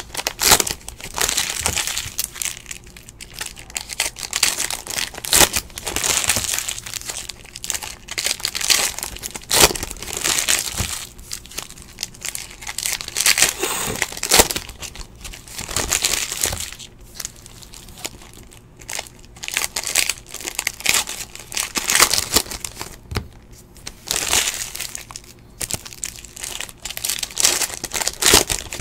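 Foil trading-card pack wrappers being torn open and crinkled by hand. The crackling comes in irregular spurts that come and go.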